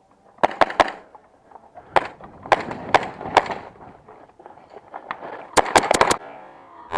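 Airsoft guns firing: three quick shots under a second in, single shots about every half second a little later, then a rapid string of about five shots near the end.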